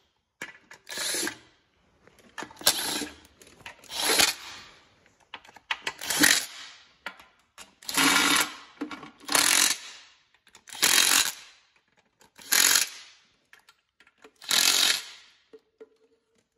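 Cordless impact wrench run in short bursts, about ten in all, each under a second with a second or so between them, as it runs in and tightens the bellhousing bolts.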